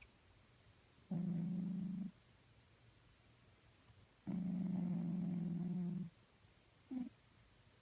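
A sleeping cat snoring: steady, pitched snores with quiet breaths between them. There is one of about a second, then a longer one of nearly two seconds, and a brief one near the end.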